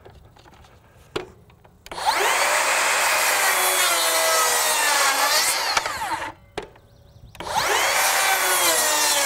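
Makita 40V XGT brushless rear-handle 7-1/4" circular saw making a 45-degree bevel cut in two-by lumber: the saw starts about two seconds in and cuts for about four seconds, its motor pitch wavering and dipping under load. It stops for about a second, then starts again and cuts once more.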